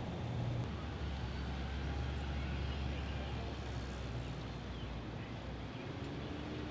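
Steady outdoor background noise with a low, even hum underneath that drops out about six seconds in.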